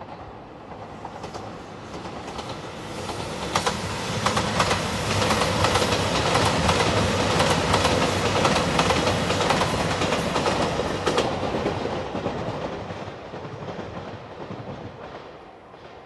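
JR Shikoku 2700 series diesel limited express train passing at speed: its running noise builds over a few seconds, is loudest in the middle with wheels clicking over rail joints, then fades away.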